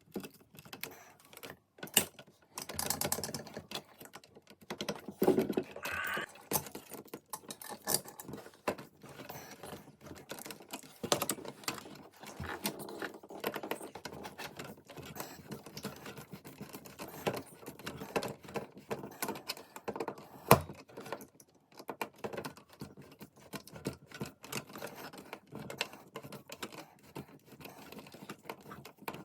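Hands working on a fire alarm pull station, fitting a part on and closing it: irregular small clicks, taps and rattles, with a sharper knock about two thirds of the way through.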